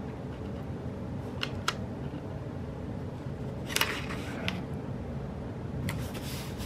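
A few short light clicks and crackles of paper and stickers being handled on a planner page, in two small clusters a couple of seconds apart, over a steady low fan hum.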